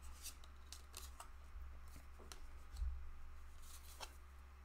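Tarot cards being handled: a few light, faint clicks and slides of card against card, with a dull bump about three seconds in.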